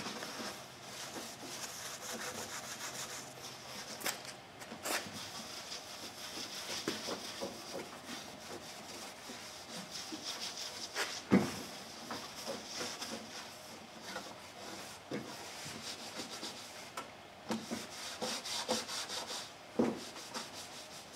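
Cloth rag rubbing back and forth over the painted fiberglass of a sailboat's sliding hatch, wiping on and off a solvent paint prep to remove wax before sanding. A few light knocks come through, the sharpest about halfway through.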